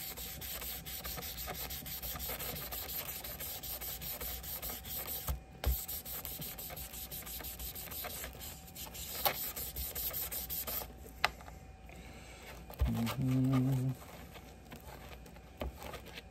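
Hand rubbing and scrubbing on the corroded brass bolster of a Schrade LB-5 folding hunting knife, cleaning off corrosion and ground-in dirt. The rubbing is steady and stops about two-thirds of the way through.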